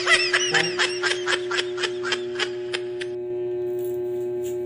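A rapid, high-pitched giggle of short notes, about five or six a second, trailing off about three seconds in, over a steady low background tone.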